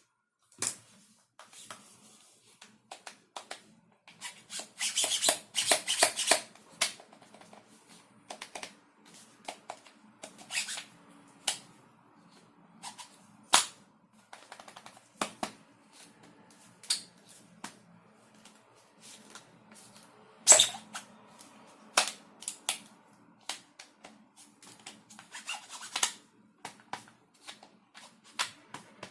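Irregular sharp clicks and knocks of plastic airsoft gun parts being handled and snapped together, with a quick run of clicks about five seconds in and another near the end. A faint low hum runs underneath.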